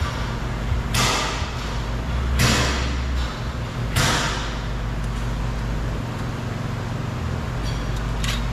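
Ratchet wrench with a 7 mm socket backing out door screws: three short rasping ratchet strokes about a second and a half apart, over a steady low hum.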